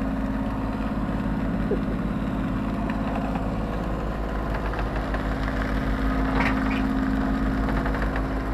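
Sailboat's inboard engine running steadily, heard from inside the cabin as an even drone with a low pulsing throb.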